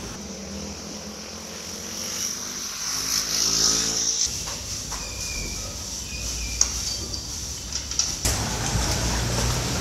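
An engine running, its pitch stepping upward over the first four seconds, over outdoor ambience with a steady high hiss; the background changes abruptly about four and again about eight seconds in.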